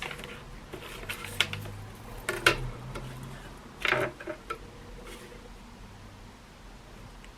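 Short strokes of drawing lines on paper, with a few light taps spread through the first half, over a low steady hum.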